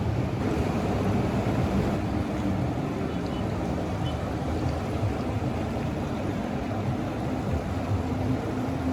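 Steady low rushing of the Ganges river flowing past the bank, mixed with wind, even and unbroken throughout.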